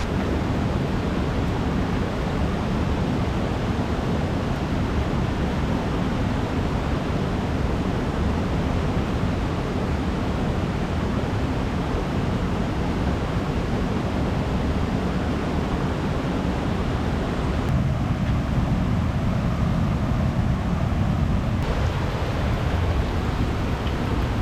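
Waterfalls and a rushing river in full spate after heavy rain: a steady, dense rushing noise with most of its weight low. The tone shifts twice near the end.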